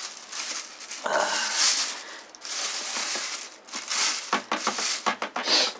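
Thin plastic bin bag rustling and crinkling as it is spread open and pushed into a metal bin, with a short nasal sniff about a second in.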